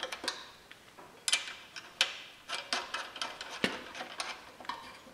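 Irregular small metallic clicks and taps, about a dozen, with one sharper knock a little past halfway. A carriage bolt is being worked by hand into a hole through a steel snowplow moldboard and its bolted-on side plate, a hole that is hard to line up.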